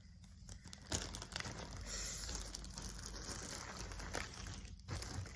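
Packaging crinkling and rustling as it is opened and handled, starting with a sharp click about a second in.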